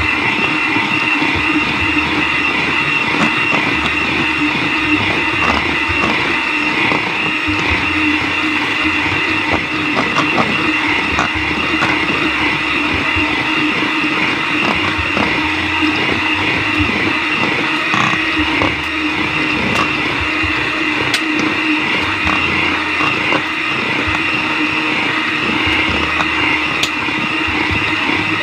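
Electric hand mixer running steadily at high speed, its beaters whipping chilled cream in a stainless steel bowl as it thickens and rises.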